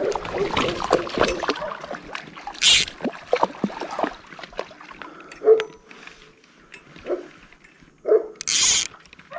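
Dog whimpering and whining in short broken sounds, with water sloshing and two short hissing bursts, one about a third of the way in and one near the end.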